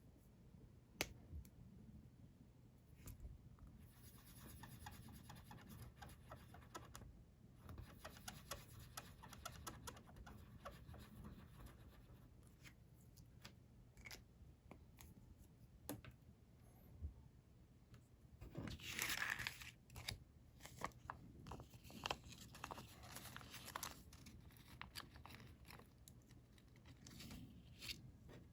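Sheet of coloured origami paper being folded by hand: faint crinkling, creasing and rustling, with scattered small taps, and a louder rustle about two-thirds of the way through.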